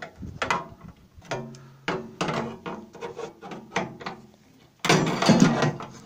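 Side cutters snipping through the sheet-metal tabs of a microwave's pre-scored bottom access panel, in a string of sharp metal snaps and clicks. Near the end comes a louder stretch of scraping and bending sheet metal as the panel is worked free of the casing.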